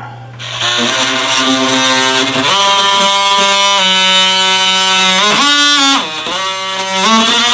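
Background music: sustained instrumental notes that step from pitch to pitch, with a brief bend down and back up a little past the middle.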